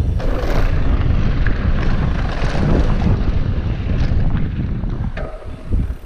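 Wind on the microphone and a mountain bike's tyres rolling fast over dry, loose dirt, with scattered clicks and rattles from the bike. The rush drops off briefly about five seconds in.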